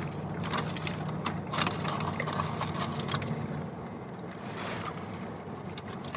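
Steady low hum of a car's cabin, with scattered small clicks and rustles of food wrappers and eating.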